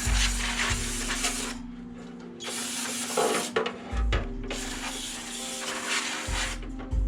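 Aerosol can sprayed in three long hissing bursts of one to two seconds each, the sound of a cleaning spray being put on the motorcycle's front brake parts. Jazz music plays underneath.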